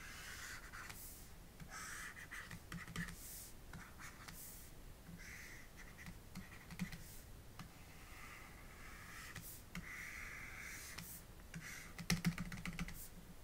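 Faint scratchy swishes of a stylus drawing strokes on a pen tablet, each about half a second to a second long, with a quick run of light taps near the end.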